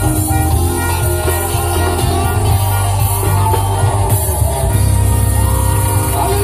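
Live band playing loudly through a PA system, with a drum kit, guitar and a heavy, steady bass line.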